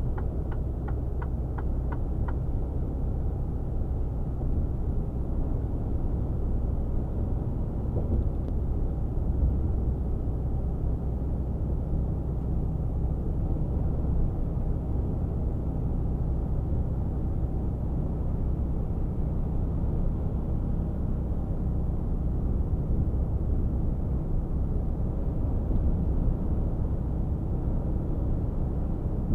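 Steady drone of a Mercedes-Benz Actros 1848 truck's straight-six diesel engine at motorway cruising speed, with road and tyre noise, heard inside the cab. A short run of light, even ticks, about three a second, in the first two seconds.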